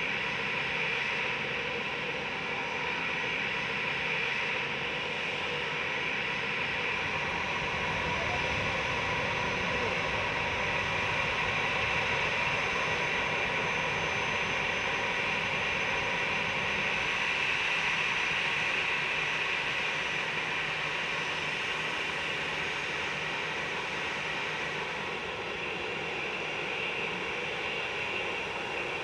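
Airliner jet engines running, a steady rushing noise with a high whine. It grows a little louder through the middle and eases off near the end.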